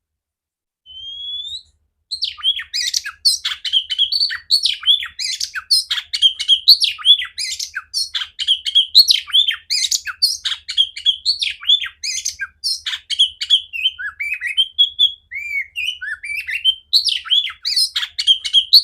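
Oriental magpie-robin (kacer) singing loudly: a short rising whistle about a second in, then from about two seconds in a fast, unbroken stream of varied whistles, chirps and harsher notes.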